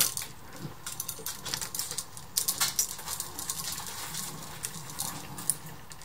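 Hands handling stiff electrical wires and plastic wire nuts at a switch box: irregular small clicks, ticks and rattles, with a quick flurry of them a little past the middle.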